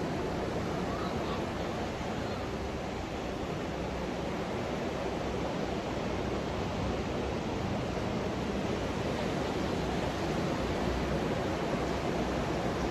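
Ocean surf breaking and washing up a sandy beach, heard as a steady, even rush.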